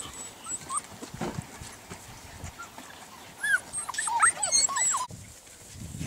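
Golden retriever puppies whimpering and yelping in short, high, arching cries: a few scattered at first, then many overlapping in the second half, cut off abruptly about five seconds in.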